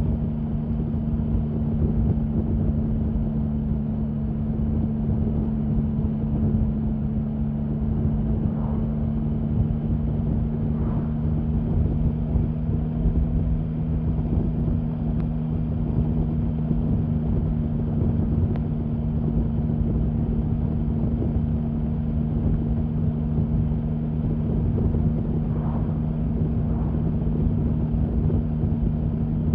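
Triumph Sprint 1050's three-cylinder engine running at steady, unchanging revs, with wind noise on the microphone.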